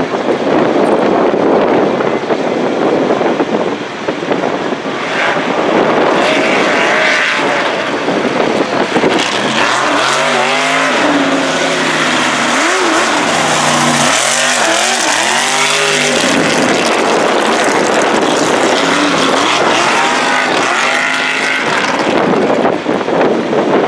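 Mega truck's engine revving hard as it races on a dirt course, its pitch rising and falling several times in the middle as the throttle is opened and lifted through the turns.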